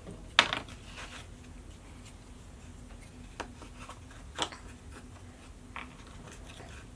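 Wooden jigsaw puzzle pieces being handled and set on the wooden puzzle board: a sharp knock about half a second in, then a few softer clicks and rubs spread through the rest.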